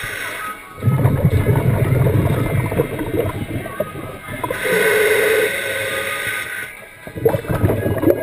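Scuba diver breathing through a regulator underwater: a long exhale of bubbles rumbling past the microphone, a hissing inhale through the regulator about five seconds in, then bubbles rumbling again near the end.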